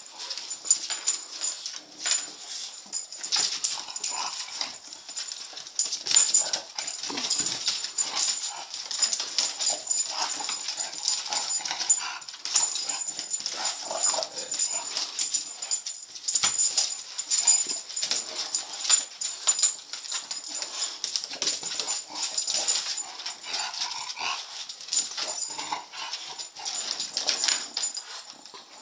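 Two English bulldogs scrambling after a laser dot on a hardwood floor: a steady patter of claws clicking and scraping on the boards, with the dogs' own vocal noises now and then.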